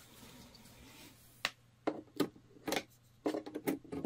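Quiet room tone, then, starting about a second and a half in, an irregular string of sharp clicks and light knocks: hands fumbling at the back of a Yamaha PSR-A5000 keyboard, plugging in a USB flash drive.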